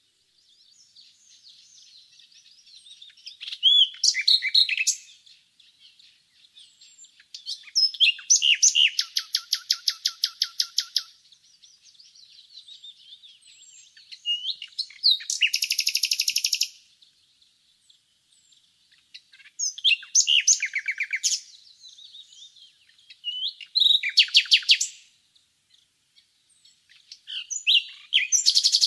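Nightingale singing in separate phrases every few seconds, several of them runs of fast repeated notes, one about a second in length that is buzzier. Faint chirping carries on in the gaps between phrases.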